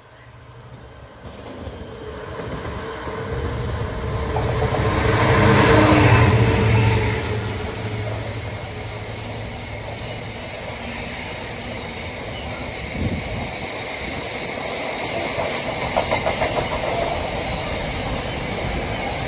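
A Freightliner Class 66 diesel locomotive with its two-stroke V12 approaches and passes, its engine hum loudest about six seconds in. Loaded intermodal container wagons follow, rolling by steadily, with a quick run of clacks as wheels cross rail joints about sixteen seconds in.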